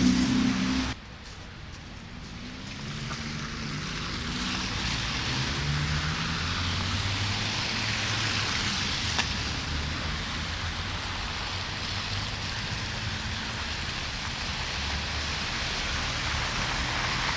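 City street traffic: a loud low engine hum cuts off abruptly about a second in. Then a vehicle passes with tyre hiss on the snowy road, swelling to a peak midway and fading, over a low engine hum.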